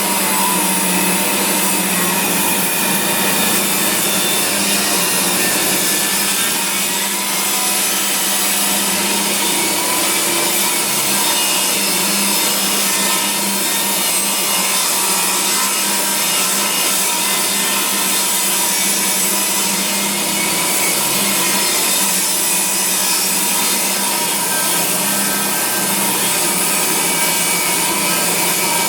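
Makita 2704N table saw ripping a board of recycled Australian ash lengthwise, the blade cutting steadily through the hardwood without a break.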